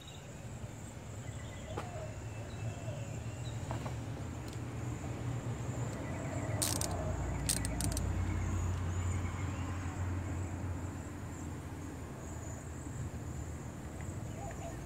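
Outdoor background: a steady high-pitched insect drone over a low rumble that swells and fades around the middle. A few sharp clicks come about seven seconds in.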